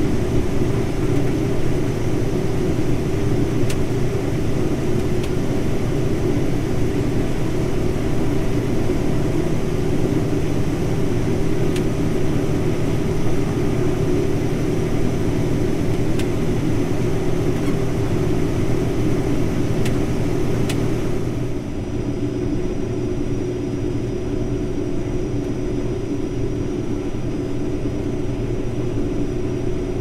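Combine harvester running steadily while harvesting soybeans and unloading through its auger into a grain cart alongside, with a few faint clicks. About two-thirds of the way in, the sound drops slightly and loses its hiss, then runs on steadily.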